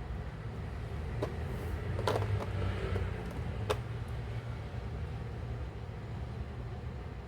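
A few sharp plastic clicks from handling a small plastic action figure and its parts, a single click about a second in, a short cluster around two seconds and another click near four seconds, over a steady low hum.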